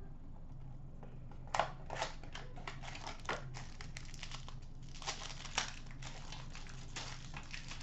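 Foil wrapper of an Upper Deck SP Game Used hockey card pack crinkling and tearing as it is ripped open by hand. It is a run of sharp crackles starting about a second and a half in, with the loudest snaps near the start and again around five seconds.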